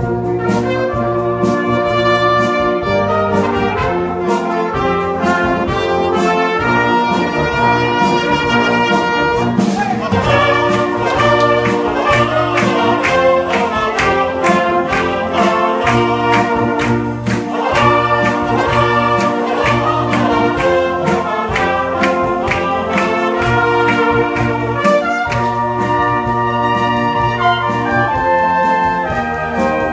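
Brass band playing a slow piece, a solo trumpet over the band's brass. A regular drum beat comes in about ten seconds in.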